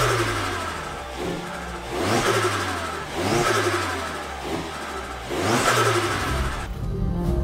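Opel Astra G OPC/GSi engine revved four times, each rev rising quickly and falling back toward idle.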